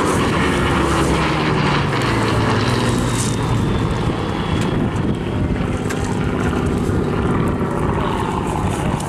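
Spitfire Mk IIa's Rolls-Royce Merlin V12 engine running steadily as the fighter flies past in a display, its pitch sliding slowly as it goes by.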